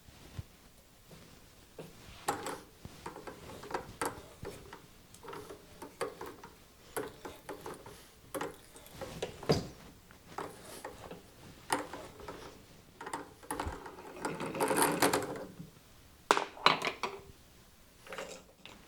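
Metal tools and machine parts being handled during lathe setup: scattered sharp clicks and clanks, with a longer rattling stretch of about a second past the middle.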